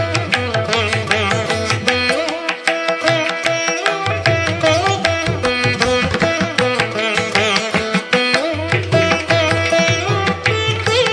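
Instrumental background music in an Indian classical style: a plucked string melody with bending notes over hand-drum percussion, the low drum part dropping out briefly twice.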